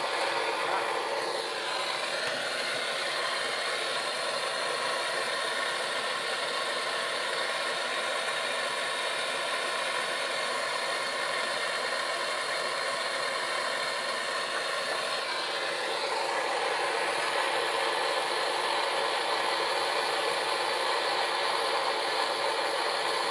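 Handheld gas blowtorch burning with a steady hiss as it heats an aluminium joint for brazing with a filler rod. The hiss gets a little louder about two-thirds of the way through.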